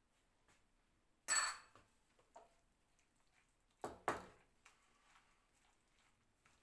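Metal cutlery striking a porcelain bowl: one sharp, ringing clink about a second in, then two heavier knocks near the middle, with a few light ticks around them.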